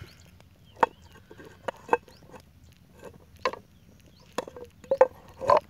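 About seven scattered sharp clicks and knocks at irregular intervals, from a small wood cooking fire and the aluminium saucepan of milk sitting on stones over it.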